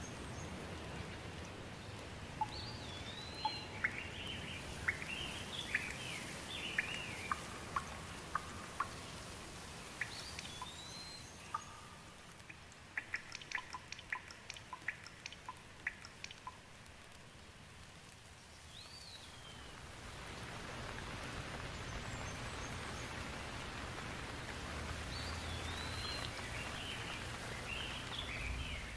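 Steady rain falling, easing in the middle and picking up again in the second half, with birds chirping in short bursts of whistled notes several times over it and a run of short sharp ticks in the middle.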